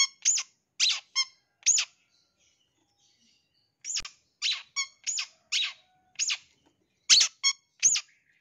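Long-tailed shrike giving short, harsh, squeaky calls in quick runs. About five calls come in the first two seconds, then a pause, then a run of about six and three or four more near the end.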